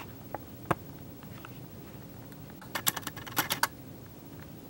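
Sharp clicks: a single one a little under a second in, then a quick cluster of about ten clicks over roughly a second around the middle.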